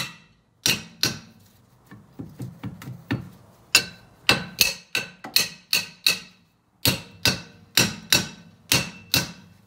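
Small hammer striking a rusted-on rear brake drum to knock it loose: a string of sharp metallic clanks that ring after each blow, up to about two a second, with lighter taps between about two and three seconds in.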